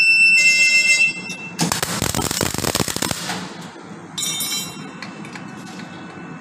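A loud, steady, high-pitched electronic buzzer tone for about the first second, then MIG welding arc crackle for about two seconds. A shorter beep follows about four seconds in.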